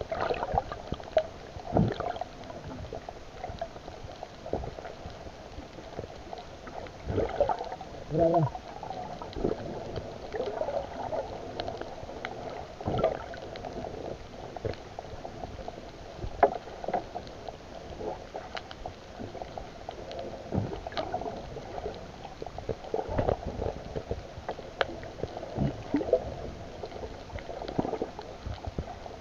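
Muffled underwater sound picked up by a submerged camera: water sloshing and gurgling, with scattered clicks and knocks and a short warbling sound about eight seconds in.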